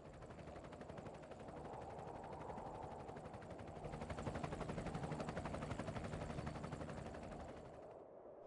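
A motor running with a fast, even pulsing that grows louder towards the middle and fades near the end.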